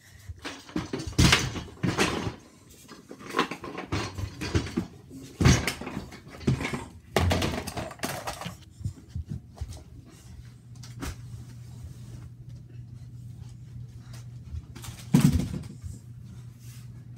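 Irregular knocks and thumps of children moving about on a carpeted floor close to the phone, several in quick succession, then a low steady hum comes in about ten seconds in, with one more loud knock near the end.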